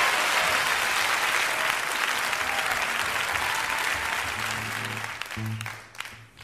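Live concert audience applauding at the end of a song, the clapping thinning out and fading away over the last couple of seconds.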